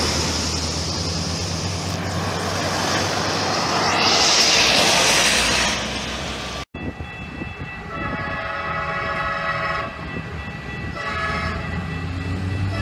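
Road noise swelling as a semi-truck tractor passes close by, cut off abruptly partway through. Then a train horn sounds a long blast, a short one, and the start of another as the train nears a level crossing.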